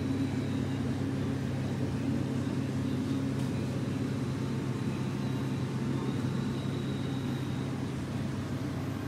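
Aquarium equipment running: a steady low mechanical hum, with a faint thin high tone above it that fades out near the end.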